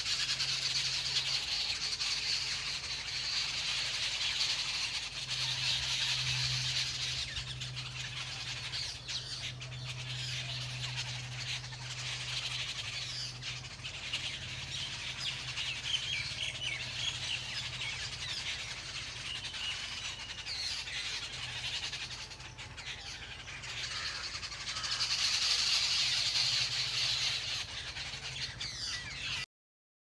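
A flock of jungle babblers chattering: a dense chorus of overlapping calls that swells about five seconds in and again near the end, over a steady low hum. It all cuts off suddenly just before the end.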